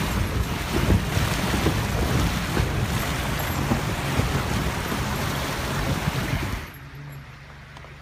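Creek water rushing and splashing against the side of a vehicle fording a rocky creek, with a low rumble and wind buffeting the microphone. About seven seconds in it cuts off suddenly to a much quieter steady background with a low hum.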